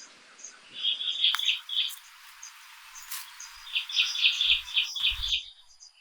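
Birds chirping in quick runs of short, high notes, with a couple of faint low thuds near the end.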